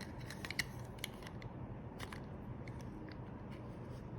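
Small clicks and taps of seatbelt retractor parts being handled and fitted back together, scattered irregularly over a low steady hum.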